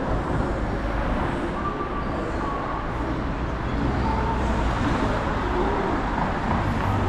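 City street traffic: steady road noise with a low rumble from passing cars.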